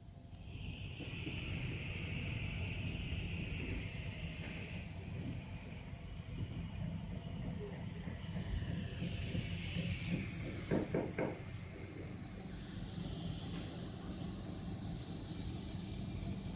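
TIG (GTAW) welding arc on stainless steel pipe: a steady hiss over a low hum, starting about half a second in, with a few short sharper sounds about eleven seconds in.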